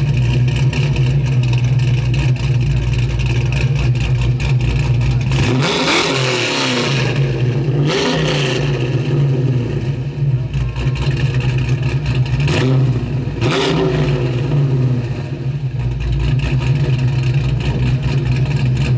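Car engine idling steadily, revved briefly four times, each rev rising and falling in pitch.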